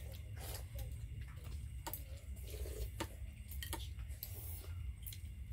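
Scattered sharp clicks and light taps, six or seven at uneven intervals, over a steady low hum.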